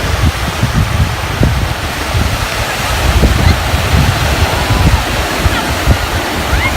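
Wind buffeting the microphone in rough, irregular gusts over a steady rush of sea surf.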